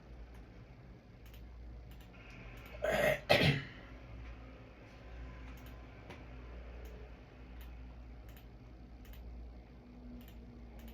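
A person clears their throat with two quick coughs about three seconds in, over a steady low room hum and scattered faint light clicks.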